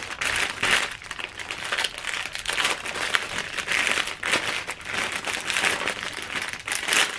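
Clear plastic packaging crinkling and rustling in irregular bursts as it is handled and turned over.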